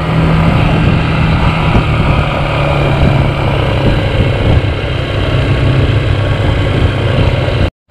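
Dual-sport motorcycle engine running steadily while riding, heard from a handlebar-mounted camera with wind noise on the microphone. The sound cuts off suddenly near the end.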